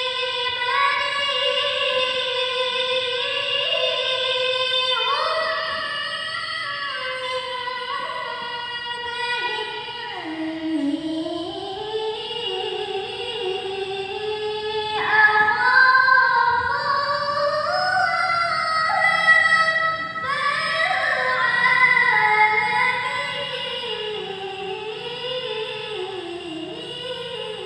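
A woman reciting the Quran in the melodic tilawah style, in maqam bayyati, holding long ornamented notes that wind up and down in pitch. She takes fresh phrases about fifteen and twenty seconds in, louder and higher for a while, then the line settles lower and fades near the end.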